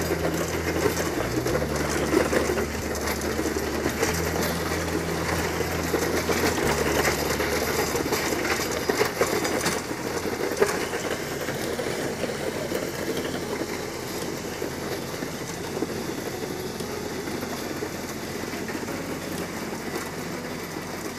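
Tractor engine running steadily while a land plane drags across a hard-packed gravel road, its cutting edges scraping and crunching the gravel, with scattered clicks of rock. The engine's low hum fades about nine seconds in, leaving mostly the scraping of gravel.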